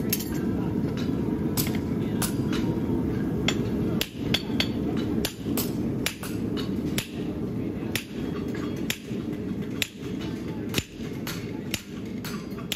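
Farrier's hammer striking steel in uneven blows, about two a second, over a steady low rumble.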